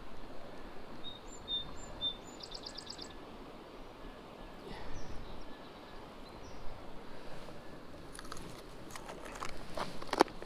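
Steady rush of a small river's flowing water, with a songbird calling over it: a few short chirps, then a quick trill about two and a half seconds in, and fainter chirps later. A few sharp clicks near the end.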